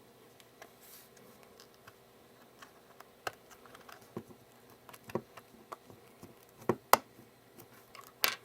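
Small sharp clicks and taps as an iPhone 3GS display assembly is pressed back into its case and snaps into place. The clicks come irregularly, with a few louder ones in the last few seconds.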